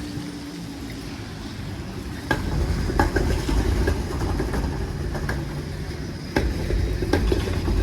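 City street traffic: a low rumble that grows louder a couple of seconds in, with scattered sharp taps and clicks.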